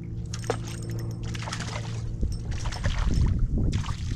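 Steady electric hum of a bass boat's trolling motor, which fades out about two seconds in. Over it come four short bursts of water splashing as a crappie is hooked and pulled to the surface.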